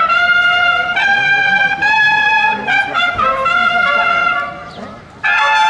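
Brass instruments playing a slow melody of long held notes in unison, dropping away briefly a little after four seconds in and coming back loudly near the end.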